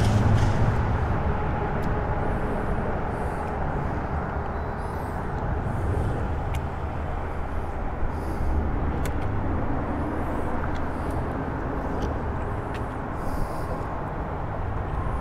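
Steady low rumble of traffic crossing the Interstate 10 highway bridge overhead, with a few faint ticks.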